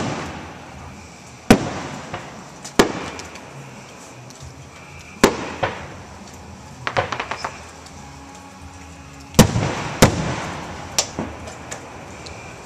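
Aerial firework shells bursting: a string of sharp booms a second or more apart, each trailing off in a rolling echo. A quick run of small crackling pops comes about seven seconds in, and two heavy booms close together near the end.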